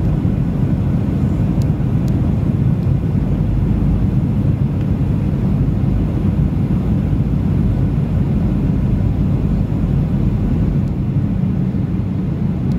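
Steady low rumble of a Boeing 737's engines and airflow, heard inside the passenger cabin on final approach.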